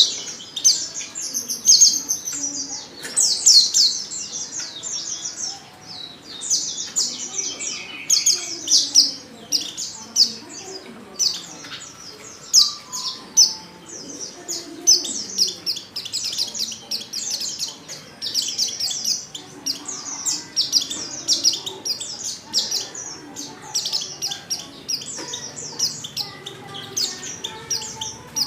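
Female pleci (white-eye) calling in high, quick twittering chirps, phrase after phrase about every half second to a second. It is a lure call, used to get male white-eyes to sing.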